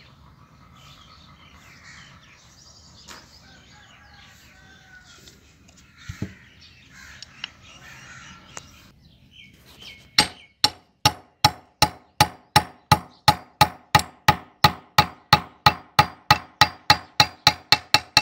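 A small hammer taps a steel pin into a pipe wrench's hook jaw. After a faint stretch with bird calls in the background, about two dozen quick, even, ringing metal taps come at about three a second, starting some ten seconds in.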